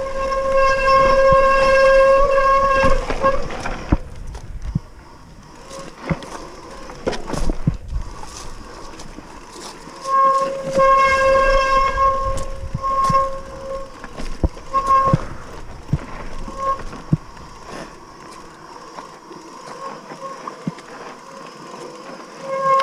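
Mountain bike disc brakes squealing in a loud, steady-pitched honk for the first three seconds or so, then again in short bursts each time the brakes are dabbed, over the knocks and rattle of the hardtail rolling across roots and rocks.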